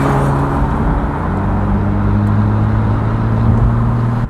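Car engine running with a steady note over road or traffic noise; its pitch shifts about a second in, then holds.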